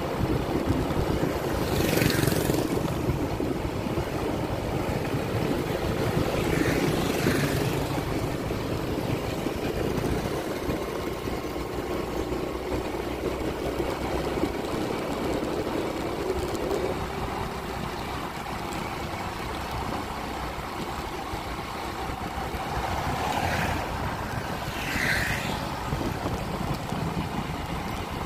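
Engine of a moving road vehicle running steadily, with road and wind noise; its drone changes pitch about two-thirds of the way through, and a few brief hissing swells rise and fade.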